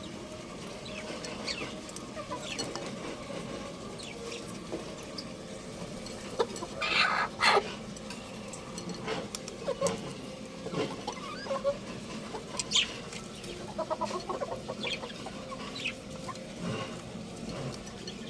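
Young rooster clucking and chirping in short, scattered calls, with the loudest pair about seven seconds in.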